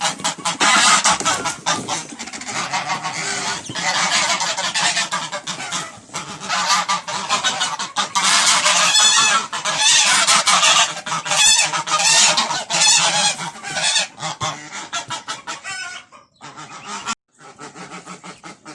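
A bunched-up flock of domestic geese and ducks calling all at once, the geese honking loudly and continuously; the racket thins out after about sixteen seconds.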